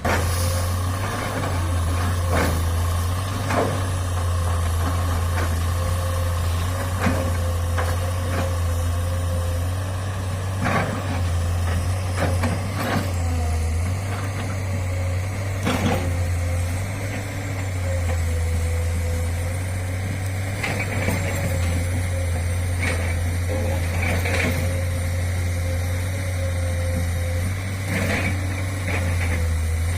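Heavy diesel engine machinery of an excavator loading a dump truck, running with a steady low drone. Sharp knocks and clunks come at irregular moments, every couple of seconds.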